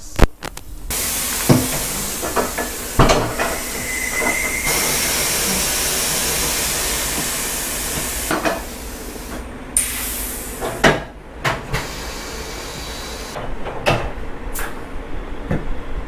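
Air hissing steadily for about eight seconds while a tyre is worked off its steel rim on a tyre changer, with a short whistling note partway through. Sharp metallic clanks and knocks come now and then.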